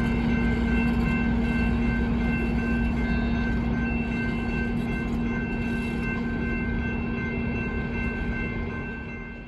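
Vintage passenger train's F-unit diesel locomotive and cars running past a grade crossing, a steady rumble with a low hum, under high steady ringing tones. The sound slowly eases as the train moves off and fades out at the very end.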